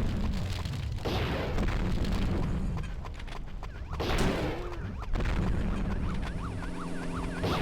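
Gunshots, each a heavy boom with a long echoing tail, about a second in and again about four seconds in. Near the end a repeating pitched pattern comes in.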